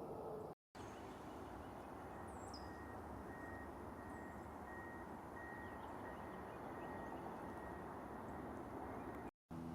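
Steady low outdoor background rumble with a few short, high bird chirps, two about two and a half seconds in and one near four seconds; the sound cuts out completely for a moment twice.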